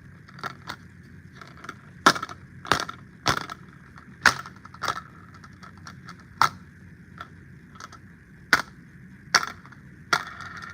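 A series of irregular sharp clicks and knocks, about a dozen spread unevenly over ten seconds, like small hard objects being handled, over a faint steady hum.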